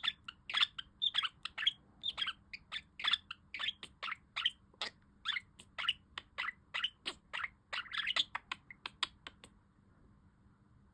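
Pet budgerigar chattering in a fast run of short, high chirps, which stop about nine and a half seconds in.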